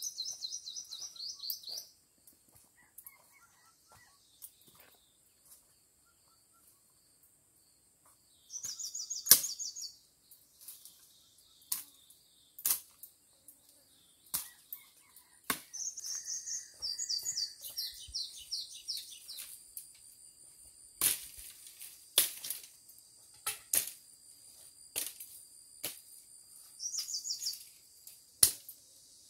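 A small bird sings short, high trilled phrases in four bouts, the longest lasting about four seconds in the middle. Sharp clicks and knocks come at irregular intervals, the loudest about nine seconds in, and a faint steady high tone runs through the second half.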